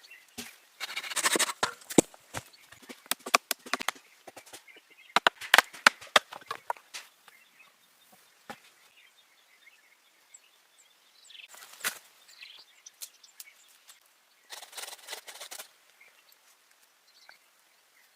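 Intermittent rustling of branches and foliage in several short bursts, with clusters of sharp knocks and clicks of wood being handled and worked for a bushcraft shelter.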